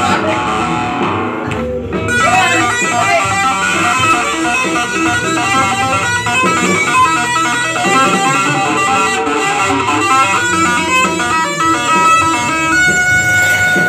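Electric guitar playing a fast run of single-note lead lines, ending on one long held note near the end.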